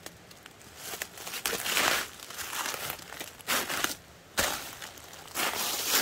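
Footsteps in dry fallen leaves: a handful of irregular steps, each a rustling crinkle of leaves, the loudest between about one and two seconds in.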